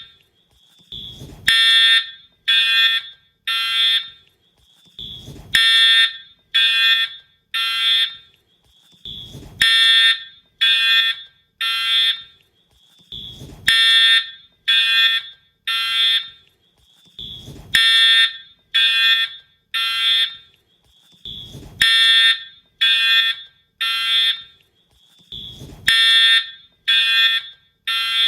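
Wheelock-style fire alarm horn/strobe sounding its horn in the temporal-three evacuation pattern: three short blasts about a second apart, then a pause, the group repeating about every four seconds. A short low thump comes just before each group.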